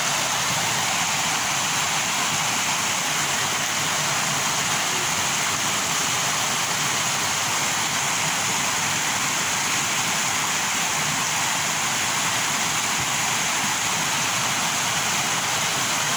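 Steady, unbroken rush of floodwater from heavy rain and overflowing storm drains.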